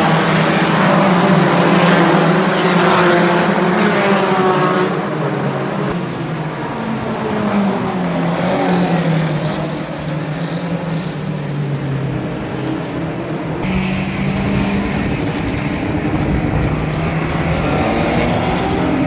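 Performance car engines revving hard and accelerating, their pitch climbing and dropping as they rev and change gear. The sound changes abruptly about five and about fourteen seconds in, as one clip gives way to another.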